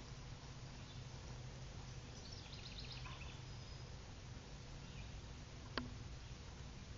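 Quiet outdoor ambience over a steady low rumble, with a brief rapid chirping trill from a bird or insect about two and a half seconds in, and a single sharp knock near the end.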